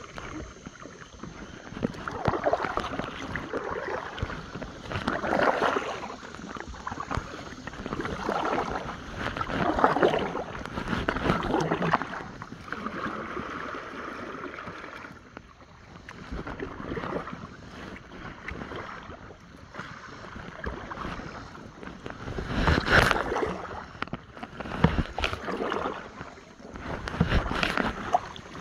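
Kayak paddle strokes, the blades dipping and pulling through the water in a repeating rhythm every two to three seconds, with splashing and dripping. The strokes ease off for a while in the middle, and there is one louder splash about two-thirds of the way through.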